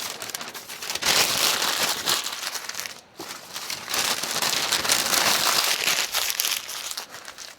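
Crumpling, crackling noise in two long spells, the first starting about a second in and the second after a brief pause near the middle.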